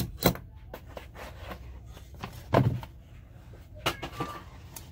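Handling noise on a work bench: several sharp clicks and knocks as items are moved and set down, with a louder thud about two and a half seconds in.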